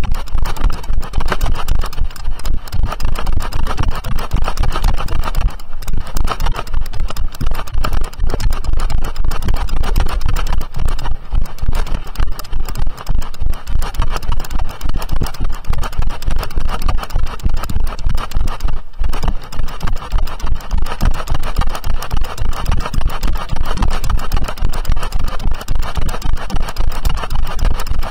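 Heavy wind buffeting and jolting on a camera mounted on a moving horse, with the ridden horse's hoofbeats on the path.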